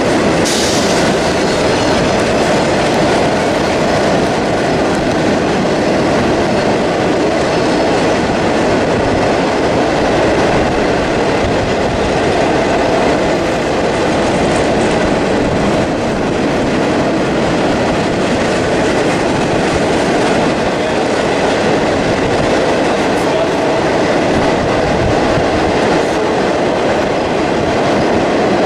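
Freight train of ore hopper cars rolling past, the steel wheels rattling steadily on the rails.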